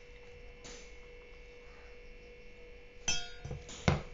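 A stainless steel bowl clinks twice, about three seconds in, each clink ringing briefly, as ingredients are mixed in it by hand. A faint steady hum lies underneath.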